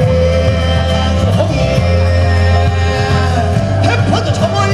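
Pansori singing with amplified backing music: a male voice holds one long note for about three seconds over a steady, heavy bass line.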